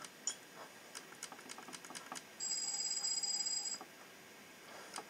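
Sonic screwdriver toy playing one of its electronic sound effects: a steady high electronic tone lasting just over a second, about halfway through, after a short blip near the start. Light rapid clicking runs underneath.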